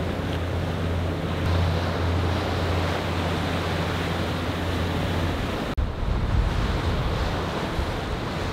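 Water rushing along the hull of a diesel trawler yacht underway, with wind buffeting the microphone over a steady low engine hum. About two-thirds of the way through there is an abrupt cut, after which the hum is gone and the wind rumble is stronger.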